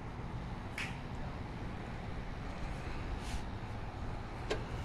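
Steady low outdoor rumble, with two brief soft rustles of a hand stroking a cat's fur close to the phone's microphone and a sharp click near the end. The cat makes no sound.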